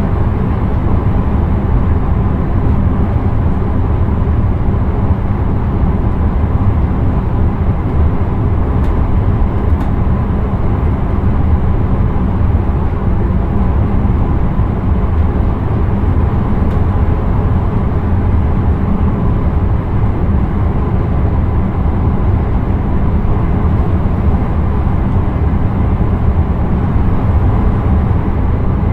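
Intercity train running, heard from inside the driver's cab: a steady, even rumble of the running gear on the track, with no separate knocks or signals.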